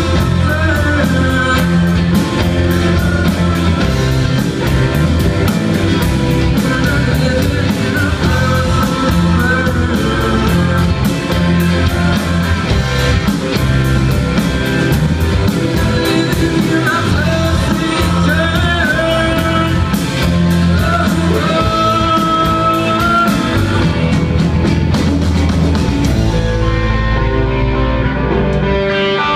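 Live rock band playing: electric guitars, bass guitar and a drum kit at full volume. About three seconds before the end the drums and cymbals drop out, leaving held guitar and bass notes ringing.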